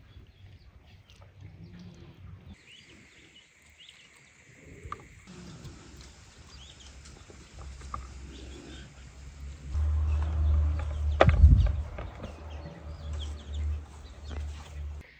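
Birds chirping with hens in the background. About ten seconds in a low rumble starts, and a little later comes one sharp knock, the loudest sound, as chicken pieces are handled and pressed into the rice in a large aluminium pot.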